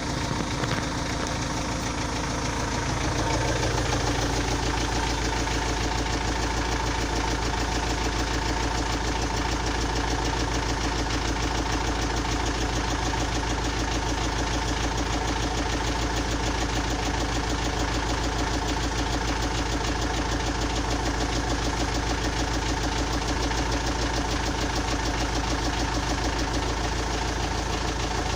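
Engine idling with a steady, rhythmic knock whose cause the owner cannot identify. The idle settles about three seconds in and then holds steady.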